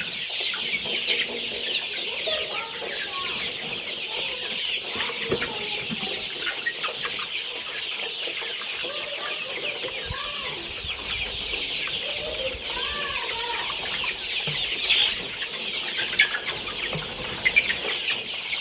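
A large flock of seven-week-old chickens peeping and chirping constantly in a dense high chorus, with scattered lower clucks.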